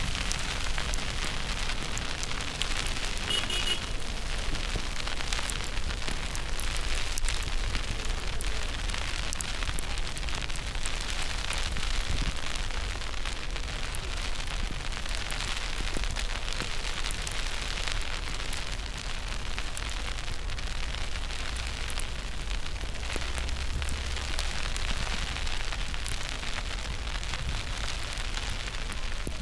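Steady crackling hiss of a snowstorm, wind-blown snow or sleet pattering, with a constant low rumble of wind on the microphone.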